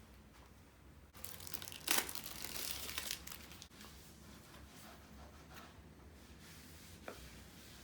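Packaging being torn open and crinkled for about two and a half seconds, loudest with one sharp rip near the start, followed by a single faint click near the end.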